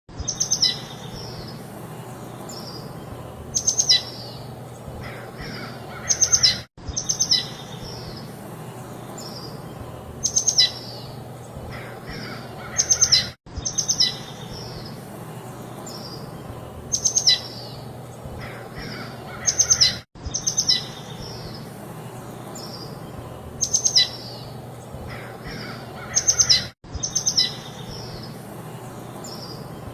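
Small birds chirping in short clusters of bright tweets over a steady soft breeze hiss. It is a looped recording: the same stretch of calls repeats about every seven seconds, with a brief dropout at each join.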